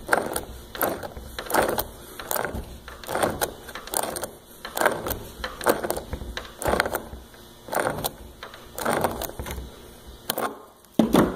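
Hand wrench turning a Teflon-taped steel pipe nipple into a PVC threaded fitting, stroke by stroke: about a dozen short mechanical sounds roughly a second apart as the wrench bites and the threads turn, with a sharper knock near the end.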